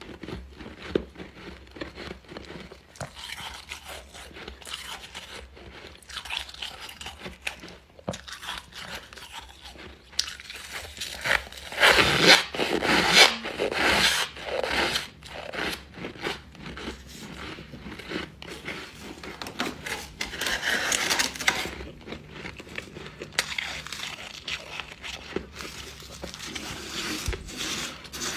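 Close-up crunching and chewing of refrozen freezer frost: a run of irregular crisp bites and chews, loudest about halfway through and again later.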